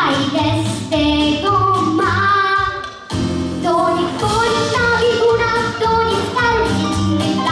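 A girl singing a country-style pop song into a handheld microphone over backing music with a steady beat. The music dips briefly about three seconds in, then picks up again.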